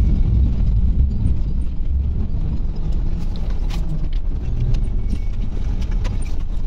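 Iveco Crossway LE 12 city bus heard from inside on the move: a steady low engine and road rumble, with scattered clicks and rattles from the cabin.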